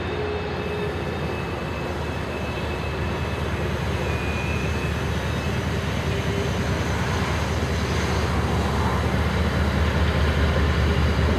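Freight trains pulled by diesel locomotives crossing two bridges: a steady low rumble and drone that grows slowly louder.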